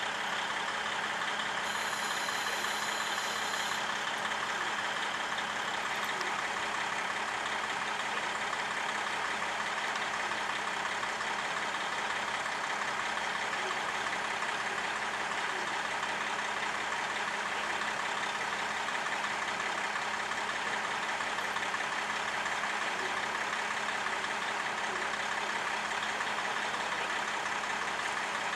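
JNR KiHa 40 diesel railcar's engine idling steadily at the station, a constant hum with a slow low throb.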